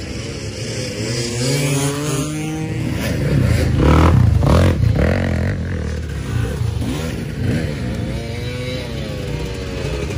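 Off-road dirt bike engines revving hard as the bikes accelerate by, their pitch repeatedly climbing and dropping with throttle and gear changes. Loudest about four seconds in.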